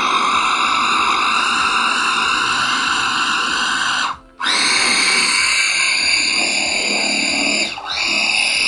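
Small electric food processor running under load, its blade grinding a soaked black-eyed pea falafel mixture with herbs and red pepper. It is run in pulses: the motor cuts out briefly about four seconds in and spins back up, with a shorter dip near the end.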